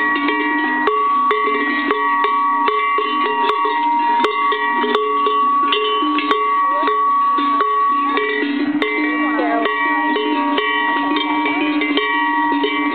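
Several Swiss cow bells worn by alpine cows clanking irregularly, bells of different pitches ringing over one another.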